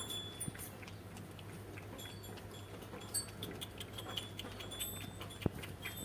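Small bells tinkling faintly and intermittently, with a steady low hum underneath and one sharp click about five and a half seconds in.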